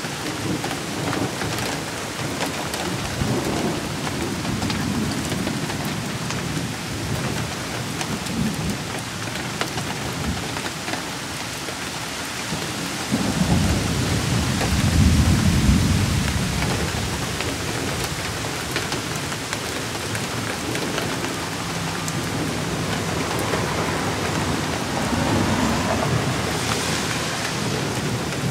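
Steady rain falling with thunder rumbling through it. The loudest, longest roll of thunder comes about halfway through and lasts a few seconds, with weaker rumbles before and after.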